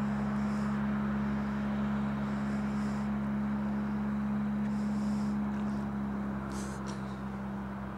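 Small outboard motor on a wooden lake boat running at steady throttle, a constant drone with the rush of the boat's wash beneath it, fading slightly near the end as the boat moves away.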